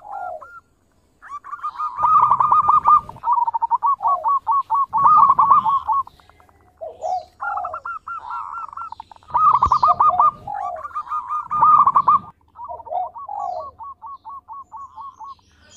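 Zebra dove (perkutut) cooing: repeated phrases of quick, rolling notes at one pitch, each phrase ending in a few lower notes, with short pauses between phrases.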